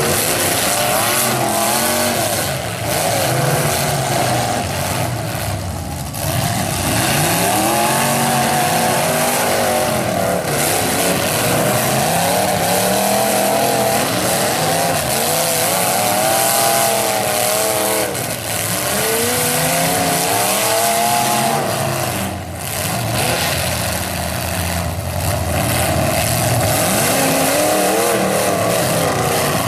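Several demolition derby modified cars' engines revving hard, the pitch repeatedly rising and falling as the drivers throttle up and back off, over a steady hiss.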